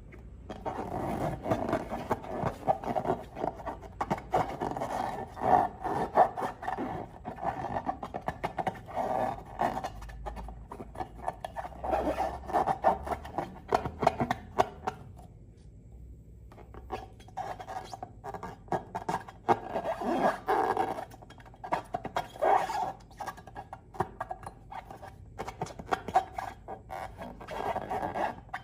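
Slime being squeezed and worked by hand: dense sticky crackling and squelching that pauses briefly about halfway.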